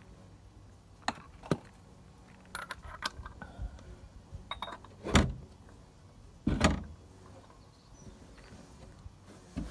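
Metal tool clinking and knocking against the old oil filter under a car as it is worked loose: scattered light clicks, then two heavier knocks about a second and a half apart, and one more near the end.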